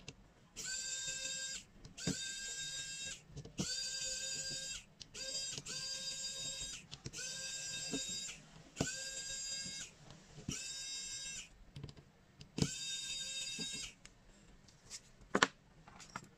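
A small electric motor whines in repeated bursts about a second long, about nine times. Each burst starts with a click and a short rise in pitch, then holds steady. A few sharp clicks come near the end.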